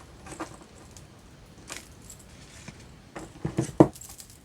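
Small clicks and taps of rubber-stamping supplies being handled on a craft table, with a quick run of taps about three seconds in as a stamp is dabbed on a Spectrum Noir Harmony ink pad.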